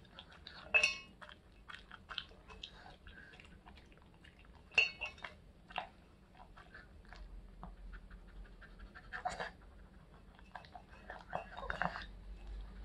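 Shih Tzu eating dry kibble from a stainless steel bowl: irregular crunching and clicking, with a few louder clinks against the metal. Near the end it licks the nearly empty bowl.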